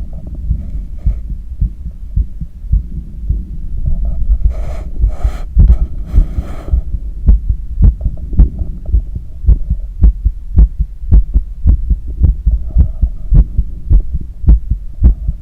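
Athlete's heartbeat heard through a stethoscope during cool-down after a long run: a steady, regular series of low thumps. In the middle comes a few seconds of rushing noise, and after it the beats come through as sharper clicks.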